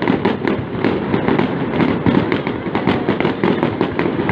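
New Year fireworks display going off in a dense, continuous barrage: many overlapping bangs and crackles several times a second, over a steady rumble.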